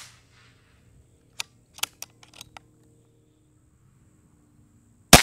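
Brocock Grand Prix S6 .22 PCP air pistol: a quick run of sharp clicks about one and a half to two and a half seconds in as the action is worked to chamber the next pellet, then one sharp shot near the end, the loudest sound.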